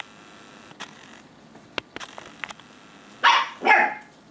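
Two short barks from an eight-week-old puppy in play, close together about three seconds in, after faint scattered clicks.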